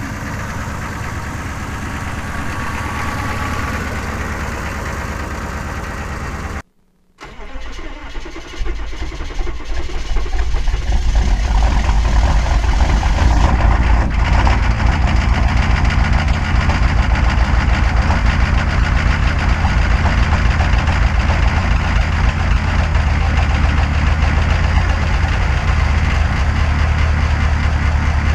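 Chevy 6.5-litre V8 diesel cold-starting at −3°F: about seven seconds in it cranks and catches, then within a few seconds settles into a loud, steady, low rumbling run. Before that there is a few seconds of steady noise, cut off by a short break.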